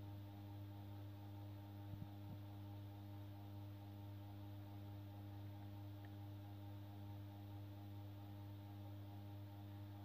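Steady low electrical hum, mains-type, with several evenly spaced overtones. Two faint clicks about two seconds in.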